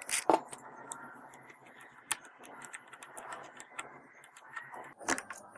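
Sharp clicks and taps of small tools and phone parts being handled during a screen repair: a few just after the start, one about two seconds in and another near the end, over faint background noise.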